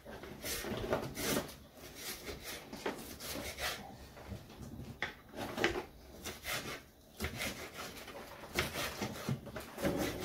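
Kitchen knife chopping yellow pepper on a wooden cutting board: a run of uneven knocks of the blade against the board.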